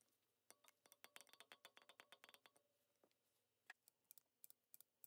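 Freshly de-rusted steel needle-nose pliers being worked open and shut, their jaws and pivot giving a quick run of faint metallic clicks for about two seconds, then a few single clicks.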